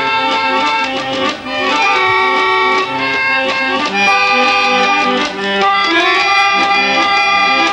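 A barrel-organ tune: long held melody notes over sustained chords, playing without a break.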